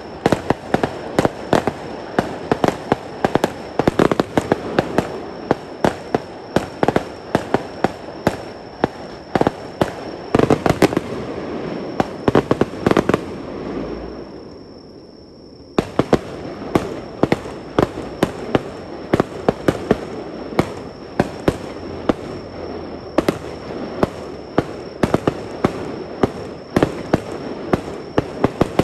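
Fireworks display: a dense, continuous run of shells bursting with sharp bangs and crackles, many a second. About halfway through the bangs fade out for a second or two, then resume abruptly at full density.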